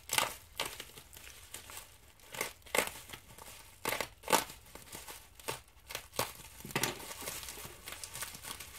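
Bubble wrap crinkling and rustling in irregular short bursts as it is handled and unwrapped by hand.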